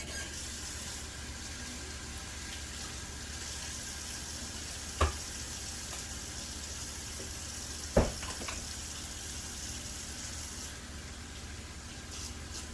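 Kitchen tap running steadily into a sink while hands are washed, with two sharp knocks a few seconds apart.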